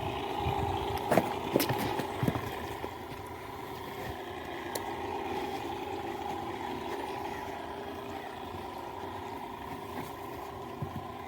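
An engine or motor running steadily, with a few short knocks in the first couple of seconds.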